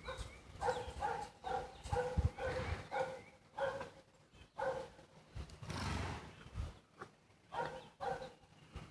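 An animal giving a run of short, evenly spaced pitched calls, then a breathy burst, then a few more calls near the end.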